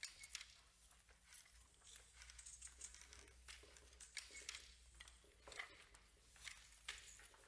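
Near silence with no music: scattered faint clicks and rustles over a low steady hum.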